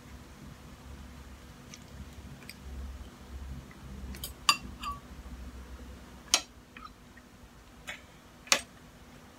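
Chewing a mouthful of noodles, with a metal spoon and fork clinking sharply against a ceramic bowl and plate four times in the second half, the last as the utensils are set down on the plate.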